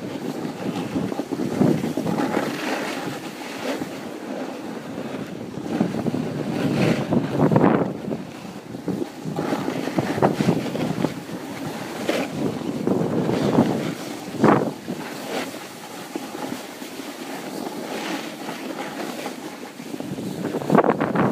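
Wind buffeting a phone's microphone while snowboarding downhill, with the board sliding and scraping over snow in repeated surges.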